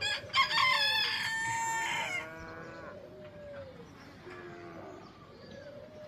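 Animal calls: a loud, high-pitched call lasting about two seconds near the start, followed by several fainter, lower calls that rise and fall.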